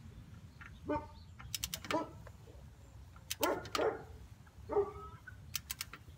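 A dog barking several times, with short runs of quick metallic clicks from a wrench ratcheting the differential fill plug in.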